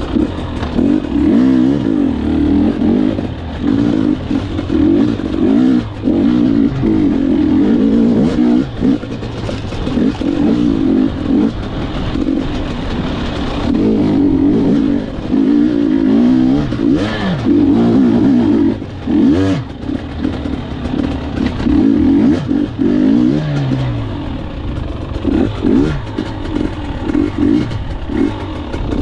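Gas Gas EC 250 two-stroke enduro bike's engine being ridden off-road, revving up and backing off over and over as the throttle is opened and shut every second or two.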